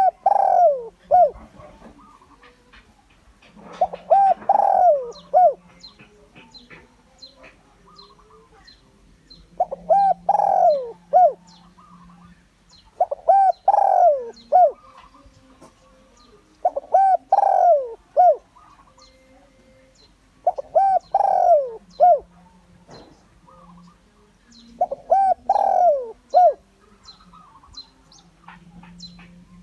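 Spotted dove cooing its territorial call, seven phrases of a few descending coos each, one every three to four seconds. It is a lure call for drawing wild males in to fight.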